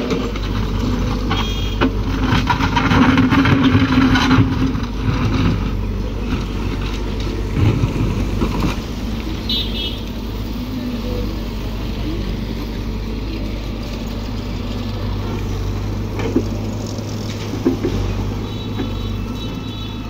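Heavy diesel engine of road-construction machinery running steadily with a low hum, louder for a few seconds near the start, amid passing road traffic and brief high tones about halfway through and near the end.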